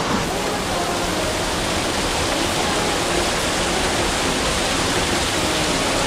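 A mountain stream rushing over boulders and a small waterfall: a steady, even rush of water.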